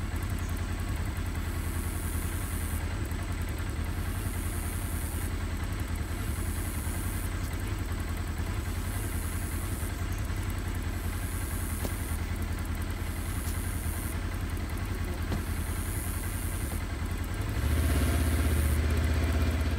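Side-by-side utility vehicle's engine idling steadily with a low hum, growing louder near the end.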